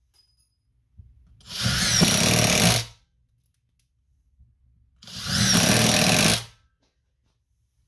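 Aldi Ferrex cordless impact driver driving two screws into wood, each run lasting about a second and a half with a pause between.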